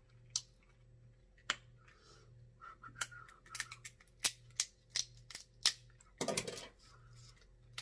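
Close-up mouth sounds of a man chewing crab meat with his mouth open: sharp, wet smacks and clicks at an irregular pace, with a short, louder smacking burst a little over six seconds in.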